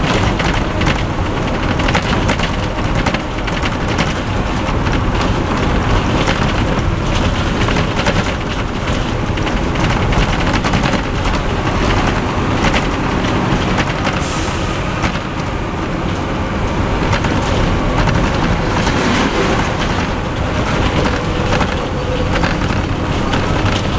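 Leyland Olympian 11M double-decker bus with a Cummins LT10 diesel engine running at cruising speed, heard on board: a steady engine rumble with road and wind noise and frequent body rattles. A brief hiss comes about 14 seconds in.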